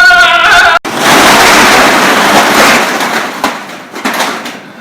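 Explosion sound effect from the bomb going off: a held, wavering tone cuts off under a second in, then a loud rush of noise that fades away over about three seconds.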